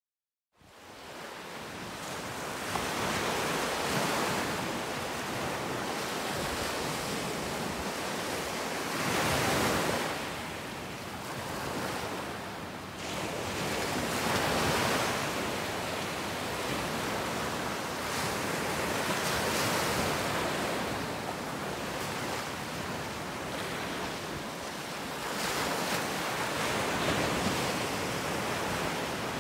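Ocean surf breaking on a beach: a steady rush of water that fades in at the start and swells and ebbs every five to six seconds as each wave comes in.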